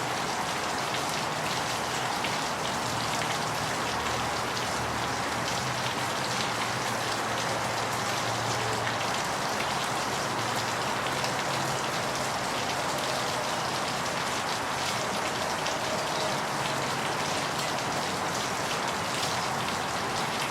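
Steady rain: an even, unbroken hiss with faint patter that starts abruptly and holds at one level throughout.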